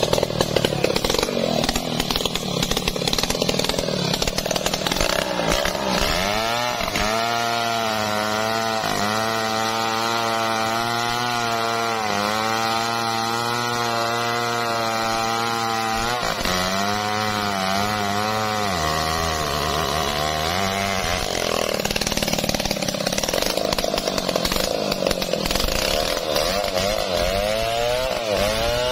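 Large two-stroke Stihl chainsaw cutting into a mahogany trunk on the back cut of a felling, running at high revs under load. Its pitch dips over and over as the chain bites, and it bogs lower for a few seconds past the middle.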